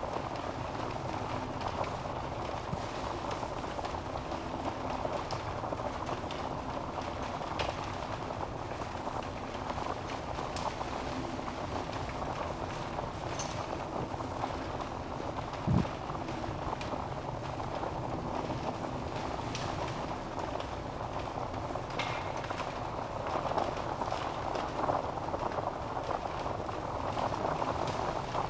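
Wood fire burning in a fireplace: a steady rush of flames with scattered small crackles of the logs, and one louder pop about halfway through.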